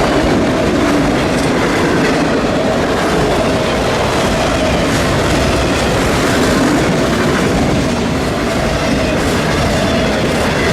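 Freight train cars rolling steadily past, their wheels clattering over the rails with a faint steady squeal.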